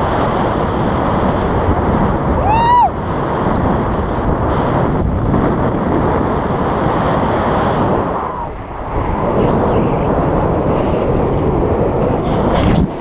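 Wind buffeting the action camera's microphone in the airflow of a tandem paraglider in flight, a steady loud rush of noise. About two and a half seconds in, a short high-pitched squeal rises and falls.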